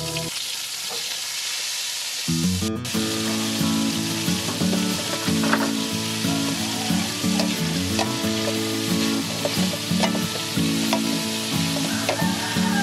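Fresh morning glory (water spinach) stems sizzling in hot oil in a steel wok as they are stirred and tossed with a wooden spatula.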